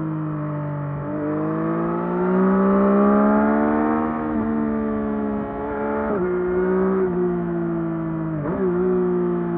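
2024 Yamaha MT-09 SP's 890 cc inline three-cylinder engine on its stock exhaust, running under way. Its pitch rises steadily for a few seconds, then drops sharply about six seconds in and dips briefly again near the end.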